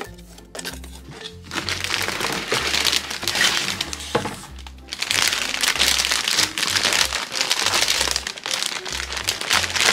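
Plastic packaging crinkling loudly as a large printed plastic bag holding a plush toy is pulled out of a cardboard blind box and handled, over background music. The crinkling starts about a second and a half in, with a short break near the middle.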